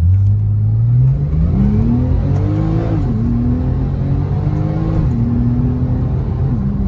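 Porsche 997.2 Turbo S twin-turbo flat-six accelerating hard, its pitch climbing and then dropping at upshifts about three seconds in and again near five seconds, through a newly fitted exhaust that sounds very beefy.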